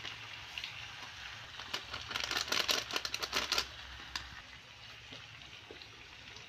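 Aloo gobi sabzi sizzling faintly and steadily in a kadhai on low heat. From about two to three and a half seconds in comes a quick run of small crackles and ticks.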